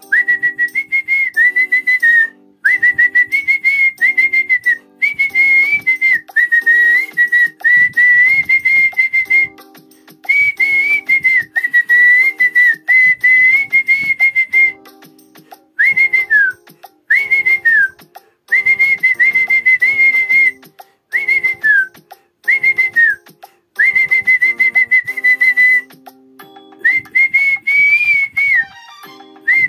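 A man whistling the melody of a Kannada film song: one clear, high tone moving in phrases with short breaks, some notes sliding downward, over a backing music track.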